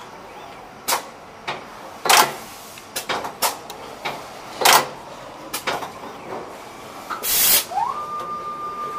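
Splice-crimping machine with a rotary table at work: sharp mechanical clacks and knocks, two of them loud, then a short hiss of compressed air about seven seconds in. After the hiss a drive motor whines, rising in pitch and then holding steady as the rotary table turns.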